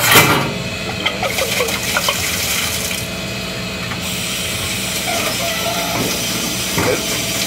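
Water running into a stainless-steel sink as a metal hookah stem is rinsed and scrubbed, with clanks of metal against the sink, the loudest right at the start and another near the end.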